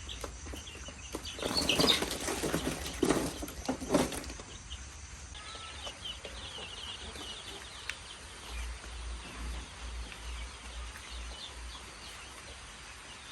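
Chickens flapping their wings in a loud burst of about two and a half seconds, then chicks cheeping in high, rapid peeps.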